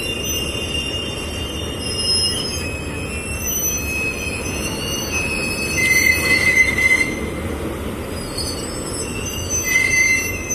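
A slow-moving train of flat wagons loaded with rails rolls along with a steady low rumble. The wheels squeal on and off, loudest about six seconds in and again near the end.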